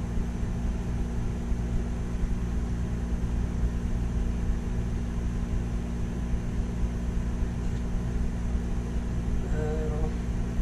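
A steady low mechanical hum from a running machine, with a short vocal sound near the end.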